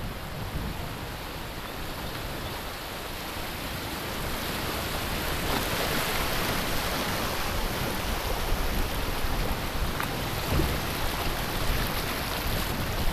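Rushing water of a shallow, rocky river riffle around a kayak, growing louder a few seconds in as the boat runs through the white water.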